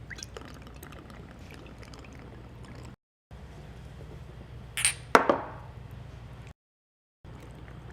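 Low steady room hum cut by stretches of dead silence. About five seconds in comes a short high hiss, then a sharp clink that rings briefly.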